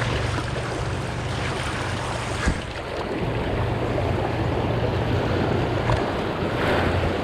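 River water rushing through whitewater rapids around a kayak, with wind noise on the microphone. There is one short knock about two and a half seconds in.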